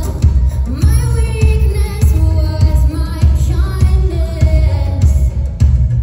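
Live pop performance: a woman singing lead over a band, with a heavy, steady bass beat.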